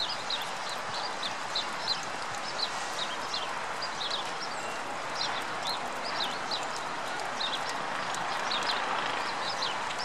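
Meltwater dripping from thawing icicles: quick, irregular high plinks over a steady hiss.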